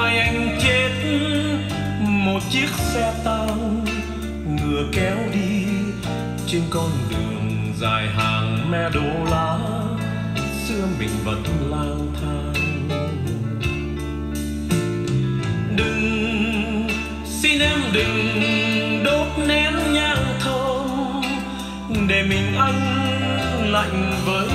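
Recorded song with a singing voice over a steady bass line, played back through loudspeakers driven by a Sony TA-F70 integrated amplifier.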